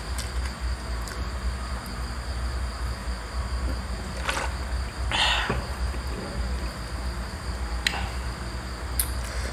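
A thin plastic water bottle crinkling as a man drinks from it: two short rustles, about four and five seconds in. Underneath is a steady low hum with a thin high whine, and there are a few faint clicks near the end.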